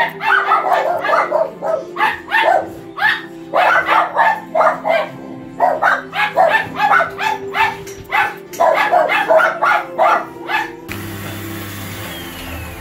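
A dog barking in quick runs of several barks at a time, over background music. The barking stops about two seconds before the end, leaving only the music.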